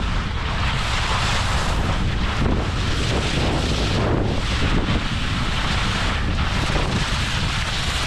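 Wind buffeting a moving action camera's microphone as it skis down the slope, with the hiss and scrape of skis carving on soft groomed snow, swelling and fading every second or so.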